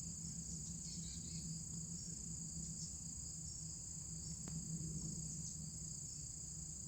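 Insects chirring steadily in a high, continuous trill.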